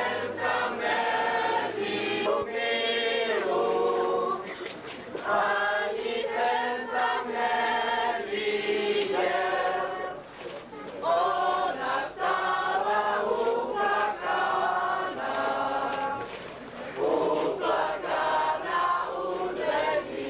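A group of voices singing a folk song together in phrases, with brief breaths between lines about every five to six seconds.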